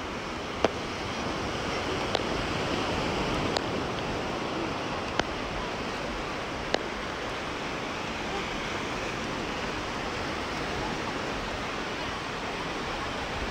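Steady wash of surf on the shore. Five sharp knocks ring out over it, about a second and a half apart, in the first seven seconds.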